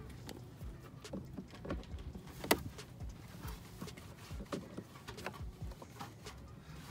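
Scattered light clicks and knocks of plastic grille clips and tabs being worked free, with one sharper click about two and a half seconds in.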